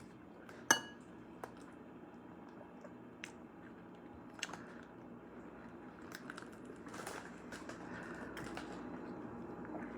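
Faint eating sounds: soft chewing and scattered small clicks, with one sharp, briefly ringing clink less than a second in.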